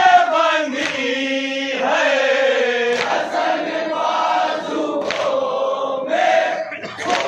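A group of men chanting a nauha, a Shia mourning lament, in unison with long wavering held notes, with a sharp slap about every two seconds.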